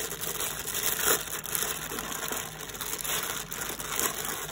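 Clear plastic packaging bag crinkling continuously as hands pull it off a plastic diffuser, with many small crackles and a sharper one about a second in.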